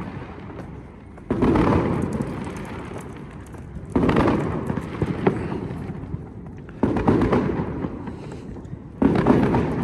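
Fireworks going off: four loud bangs a little under three seconds apart, each starting suddenly and dying away over a second or two.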